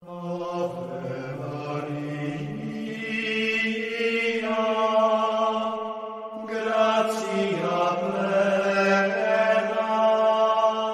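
Chanted singing on long held vocal notes that move slowly from pitch to pitch.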